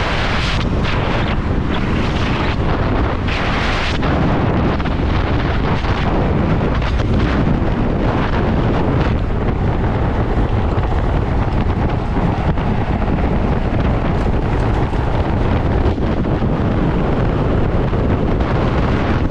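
Loud, steady wind buffeting the microphone of an electric motorcycle riding at speed, with gustier surges in the first few seconds.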